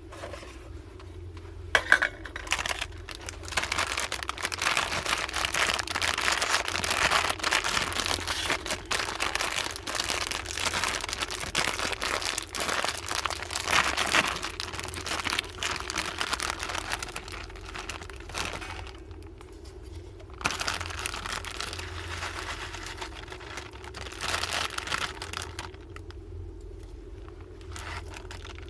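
Crinkling and rustling handling noise in a long stretch, then a shorter one after a brief pause, over a steady low hum.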